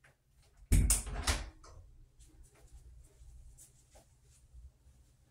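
A door being unlatched and pulled open, with a short clatter of knocks about a second in, then faint footsteps walking away.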